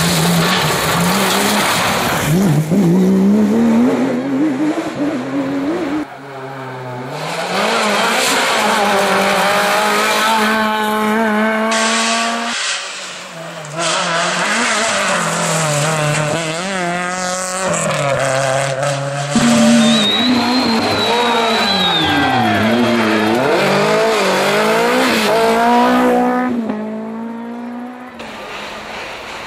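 Rally car engines revving hard, climbing and dropping in pitch through gear changes, in several short passes cut one after another. A brief tyre squeal comes about twenty seconds in.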